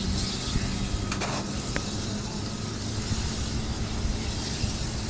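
A fire engine running with a steady hum under hissing water spray from the hoses on the fire. A short burst of noise about a second in.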